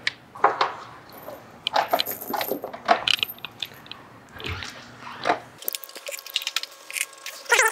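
Small metal engine parts and fasteners clicking and clinking as they are handled and fitted by hand, in short, irregular taps and knocks.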